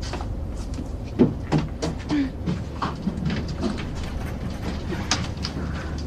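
Steady low hum of an airliner cabin, with scattered light clicks and knocks throughout, the loudest about a second in.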